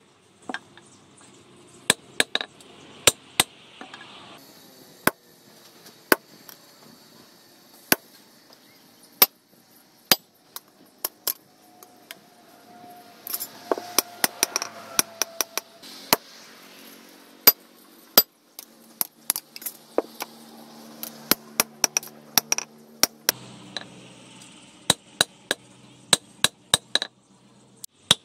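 Hand hammer striking a steel knife blade on a steel anvil post, hand-forging the blade. Sharp metallic strikes in irregular runs, with short pauses between them.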